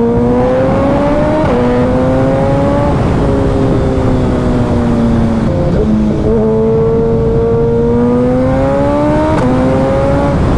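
Suzuki Hayabusa inline-four with a Brock's Performance Alien Head aftermarket exhaust, running hard at highway speed. Its pitch climbs and eases with the throttle and drops suddenly several times as the gears are shifted.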